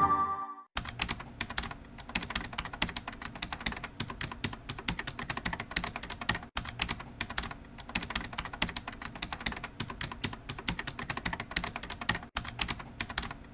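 Keyboard typing sound effect: a fast, continuous patter of key clicks, broken briefly about six and a half seconds in and again about twelve seconds in. The last of a musical sting fades out in the first second.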